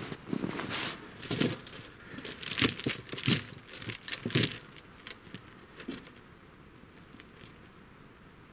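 Heavy reinforced snow chain (8 mm side chains, 10 mm cross links) clinking and rattling as it is handled and fitted around a truck tyre. A run of metal clanks over the first few seconds, then dying down to a few faint clicks.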